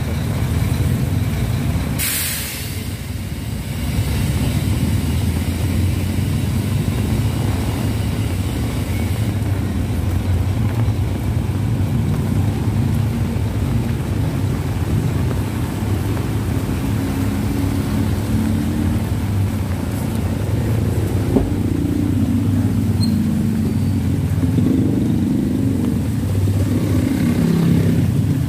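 Slow street traffic on a wet road: car, truck and motorcycle engines running and idling close by, with tyres hissing on the wet asphalt. A brief sharp hiss comes about two seconds in. Toward the end, motorcycle and motorcycle-tricycle engines rise and fall as they pass close.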